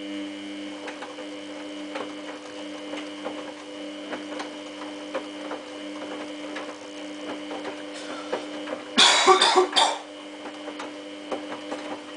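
Samsung WF8804RPA washing machine's drum motor turning the drum in a prewash: a steady hum with a faint high whine, starting right at the beginning, with scattered light clicks. About nine seconds in, a loud rough burst lasts about a second.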